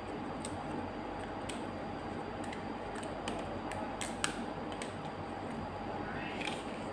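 Wooden popsicle sticks clicking and tapping as they are picked up and set down, a handful of light ticks with a sharper one about four seconds in, over a steady background hum.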